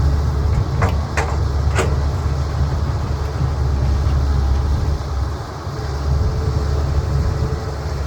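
CAT 320B excavator's diesel engine running with a steady low rumble. Three sharp knocks come about one to two seconds in.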